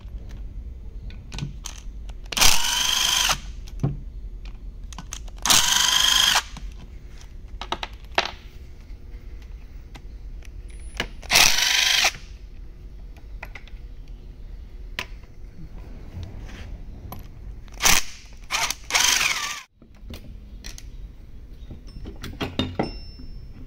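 Cordless impact driver spinning bolts out of an engine cover, in about five short runs of the motor, each a second or less, its whine rising and falling. Small clicks of handling fall between the runs.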